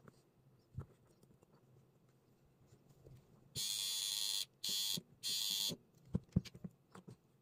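Transformer-powered welding tool with copper electrodes buzzing in three short bursts, the first and longest about three and a half seconds in, as current passes to join a wire to a switch terminal. Light handling clicks around them.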